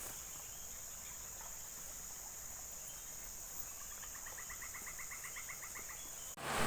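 Steady high-pitched insect chirring, with a rapid pulsed trill from some small animal for about two seconds. Near the end it cuts abruptly to a much louder, hissing noise.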